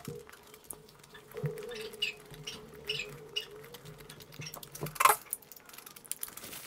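Close-miked chewing of gravy-dipped kulcha: soft, wet mouth clicks and smacks scattered throughout, with one louder smack about five seconds in.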